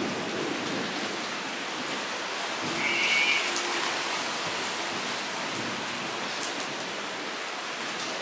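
Steady rain falling into shallow standing water on paved ground: an even patter with scattered sharper drop splashes. A short high-pitched sound rises above it about three seconds in.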